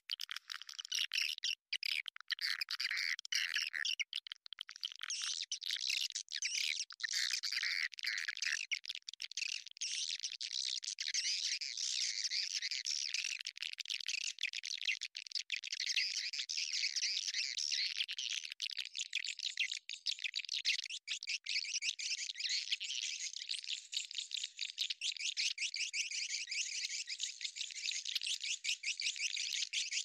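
A dense, rapid, continuous chatter of high chirps and twitters from edible-nest swiftlets. This is the kind of swiftlet lure call used to draw the birds into a nesting house.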